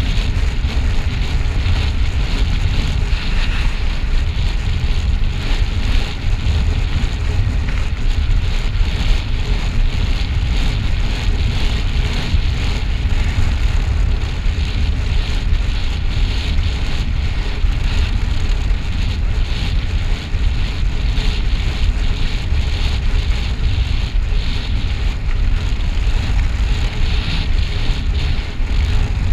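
Wind buffeting the microphone of a camera on a road bike descending fast: a loud, steady low rumble, with a fainter hiss over it.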